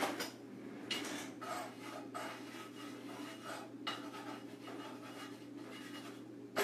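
Irregular scraping and rubbing strokes from kitchen work at the stove, several soft ones spread through, over a low steady hum.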